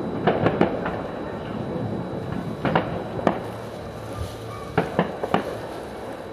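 Distant fireworks: the rumble of earlier shells dies away while sharp pops go off in small clusters, about three near the start, two around the middle and three more near the end.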